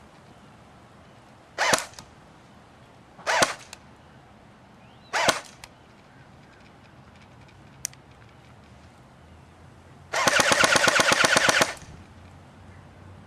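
JG MK36 electric airsoft rifle firing: three single semi-auto shots about two seconds apart, then a full-auto burst of about a second and a half. The burst runs at about 8 or 9 rounds per second on an 8.4 volt battery, which is relatively slow.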